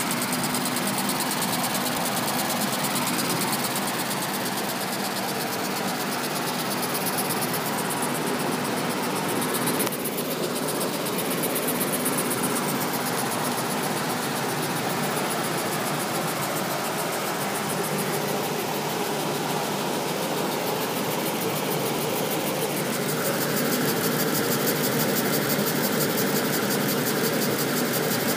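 Single-cylinder horizontal model steam engine running steadily on steam: a fast, even mechanical clatter of piston and valve gear with steam hiss, getting a little louder about 23 seconds in.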